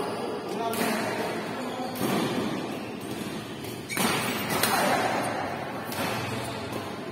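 Badminton rackets striking a shuttlecock in a rally, about five sharp hits echoing around the hall, the loudest pair about four seconds in.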